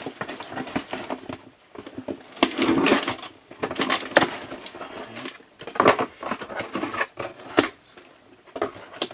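Box cutter slicing and scraping along the packing tape on a cardboard shipping box, with tape ripping and cardboard rustling in a series of short, irregular strokes.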